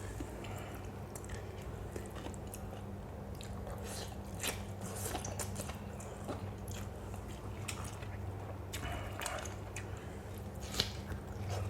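A person chewing a mouthful of lotus-stem som tum with fresh shrimp close to the microphone: irregular wet, crunchy clicks and smacks throughout, over a steady low hum.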